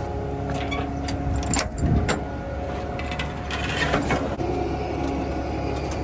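Concrete mixer truck on the move: a steady engine drone with loose metal rattling and clanking, loudest about two seconds in and again around four seconds.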